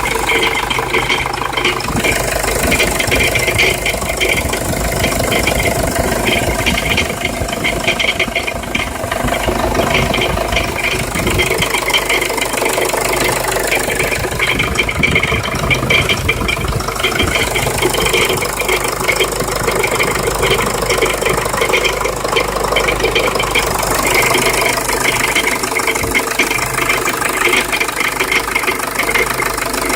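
Jeep Liberty CRD's common-rail diesel engine running steadily with a continuous fast rattling, grinding noise, a noise whose cause is not yet known.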